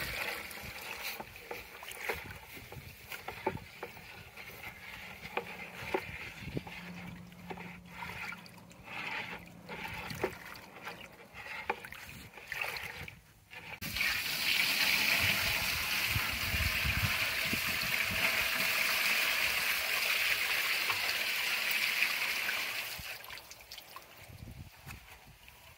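Gasoline trickling from a plastic gas can into a bucket of roofing tar, with small knocks of a wooden stirring stick. About halfway through comes a louder, steady pour and splash as the thinned tar is tipped from the bucket into a plastic dipping vat, lasting about eight seconds before it dies away.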